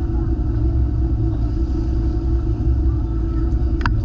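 Boat engine running steadily under way, a continuous low rumble, with one brief high chirp near the end.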